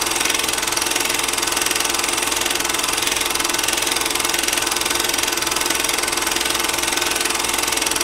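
A steady mechanical running sound effect with an even, machine-like texture, cut off abruptly shortly before the end.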